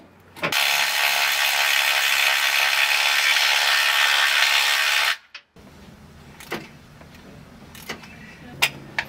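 A power tool runs steadily for about four and a half seconds and cuts off suddenly. A few light clicks and knocks of tools follow. It is unbolting the underside bracing so the oil pan can be dropped.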